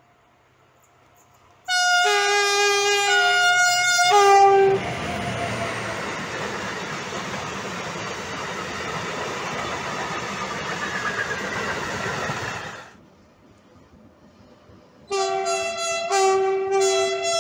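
BB 75000 diesel locomotive's two-tone horn sounded for about three seconds, switching back and forth between its two notes, then a freight train of coil-carrier wagons passing close by for about eight seconds, with the noise of the wheels on the rails. After a short lull, another BB 75000's two-tone horn sounds near the end, again alternating notes.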